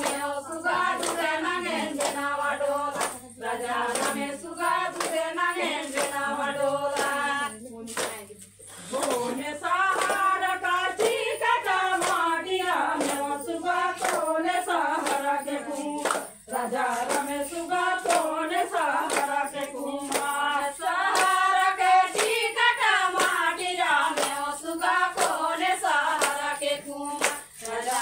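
Group of women singing a Chhattisgarhi suva (suga) folk song together, clapping their hands in a steady rhythm through the singing.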